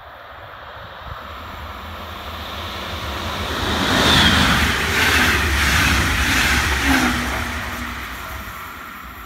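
DB electric locomotive hauling a double-deck regional train passing at speed: a rushing rumble that builds, peaks about four seconds in and holds for a few seconds before fading away, with a couple of short falling whines as it goes by.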